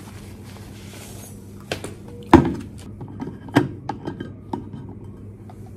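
Knocks and clicks of a stainless steel Thermos soup jar being taken out of its fabric pouch and its lid handled, with small clinks of chopsticks. The loudest knock comes about two and a half seconds in.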